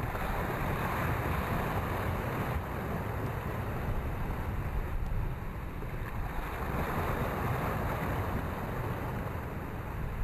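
Small waves washing in over shallow sand, with surges about a second in and again near the end, over a low rumble of wind on the microphone.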